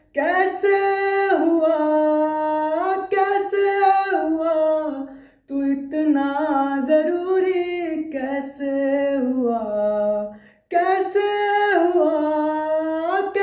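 A man singing unaccompanied in a high voice, holding long notes that bend and slide, in three phrases with short breaks about five and ten and a half seconds in.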